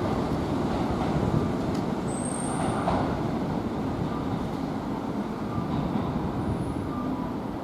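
Kintetsu electric train running, a steady rumble of wheels and motors, with a brief high squeal about two seconds in.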